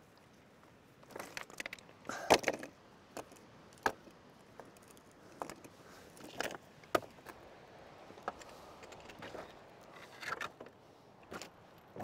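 Loose scree stones knocking and clinking against each other as they are picked up and stacked into a cairn, in a dozen or so irregular, separate knocks with the sharpest about two seconds in. The stones also shift and crunch underfoot.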